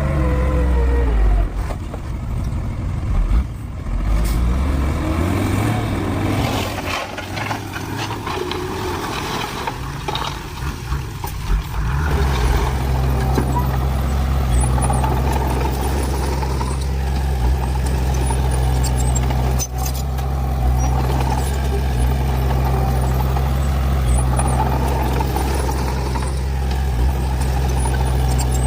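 Heavy diesel earth-moving machine engine working. Its pitch falls and rises over the first dozen seconds as the revs change, then it settles into a steady drone, with a sharp knock about two-thirds of the way through.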